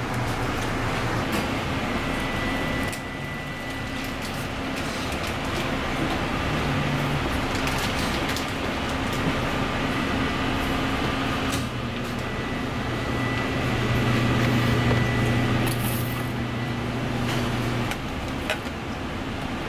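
Steady machine hum and rushing noise of a commercial kitchen, with a faint high whine over it. The background changes abruptly about 3, 12 and 18 seconds in.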